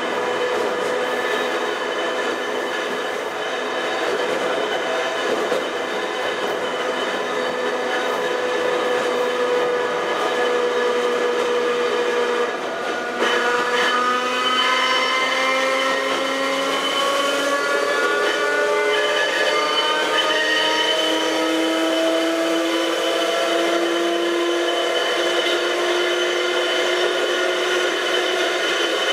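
Ohmi Railway Moha 224 electric railcar heard from inside the car, its motors and gears whining in steady tones under the running noise. About halfway there is a brief dip, then the whine climbs in pitch over several seconds as the car picks up speed, and settles into a lower, steadier whine near the end.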